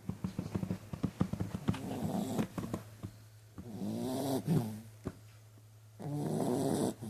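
Dog snoring in its sleep: a rapid run of rattling clicks over the first two seconds, then two long drawn, pitched snores, one about four seconds in and a louder one near the end.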